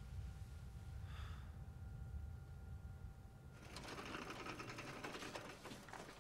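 Low steady hum with two faint steady tones. A little over halfway through it gives way suddenly to a dense, rapid mechanical clatter that runs on.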